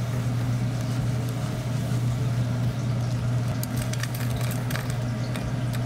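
Steady low mechanical hum of kitchen equipment, with a few faint light ticks about two thirds of the way through as whole spices drop into a steel pan.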